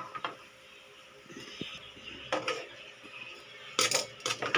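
Metal tongs scraping and clinking against a wok and a plate as pieces of pork steak are lifted out and set down. There is a click just after the start, a few clinks about halfway through, and a louder clatter near the end.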